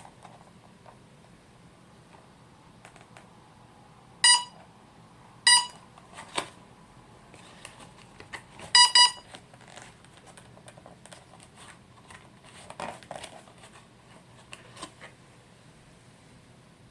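Short electronic beeps from a multirotor's flight-control electronics during ESC setup: two single beeps about a second apart, then a quick double beep a few seconds later, with a few light clicks between.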